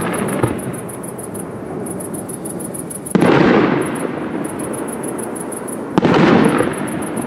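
Two fireworks shells bursting about three seconds apart. Each is a sudden bang followed by a rumbling echo that dies away in under a second.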